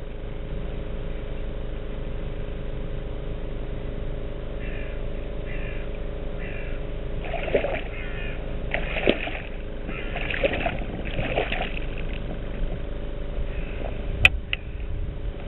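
A hooked pike thrashing at the water's surface beside a kayak: four splashes about a second apart, then a single sharp knock near the end as the fish is taken in hand. A steady low hum runs underneath.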